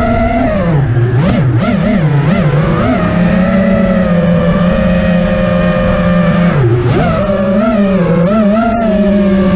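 Brushless motors and 5-inch three-blade propellers of an FPV freestyle quadcopter whining, as heard from the onboard camera. The pitch swoops down and back up several times between about one and three seconds in, and again around seven seconds, as the throttle is cut and punched; in between it holds a steady hover-to-cruise whine.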